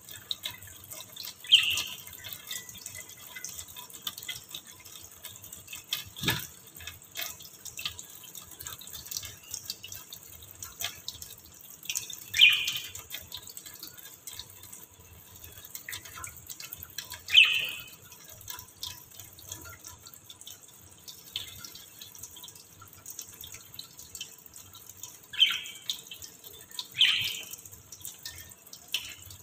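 Tap water running and dripping onto a wire birdcage in a stainless steel sink, with a budgerigar giving five short chirps over it. A single sharp knock about six seconds in.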